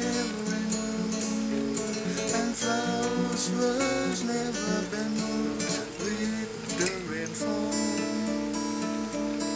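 Acoustic guitar strummed and picked in a steady folk accompaniment, with no clear singing over it: the closing instrumental passage of the song.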